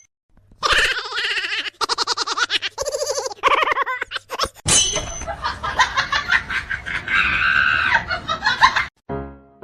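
High-pitched laughing and shrieking in rapid pulsed runs.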